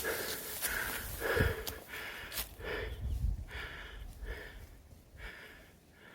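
A hiker's rhythmic heavy breathing in time with his stride, a short huff about every half-second or so, growing fainter in the second half.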